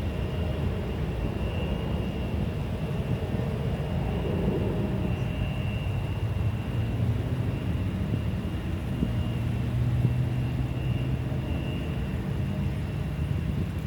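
British Airways Airbus A380's Rolls-Royce Trent 900 jet engines running with a steady low rumble and a faint high whine; the rumble swells slightly about nine seconds in.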